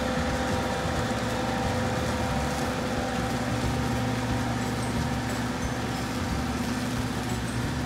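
Compact ride-on tractor's engine running steadily with its mower deck and collector fan whirring as it vacuums up fallen leaves through a hose into a rear hopper. A constant drone with several held tones over a hiss.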